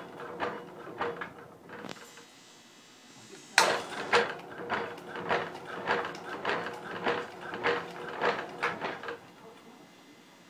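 MIKUNI HL-II automatic stacking ham slicer cutting, each pass of its carriage past the circular blade a rhythmic mechanical stroke over a steady motor hum. A few strokes come first, then a pause, then a longer run of about three strokes a second that starts sharply about three and a half seconds in and stops about a second before the end.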